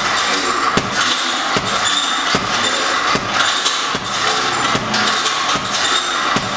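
Boxing gloves thudding into a heavy punching bag, over background music with a steady beat.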